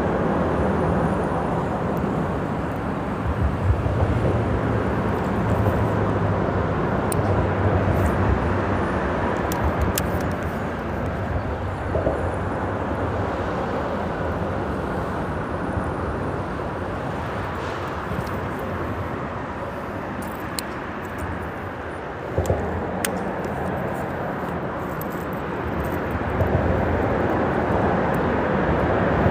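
Steady rush and rumble of freeway traffic passing over the bridge overhead, easing off a little past the middle and building again near the end.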